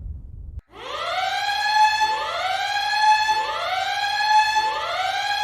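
A low rumble from an explosion fades and breaks off just under a second in. A siren then sounds in repeated rising sweeps, about one every 1.3 seconds, each climbing in pitch and then holding briefly before the next begins.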